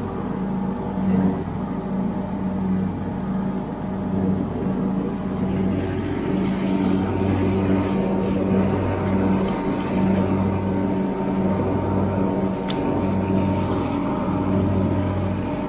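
A John Deere LX172 lawn tractor's single-cylinder engine running steadily while mowing, its drone swelling and easing about once a second.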